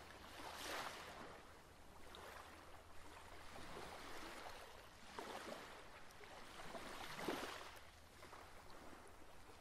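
Faint ocean surf: waves washing onto a beach, the hiss swelling and fading back every few seconds, over a steady low hum.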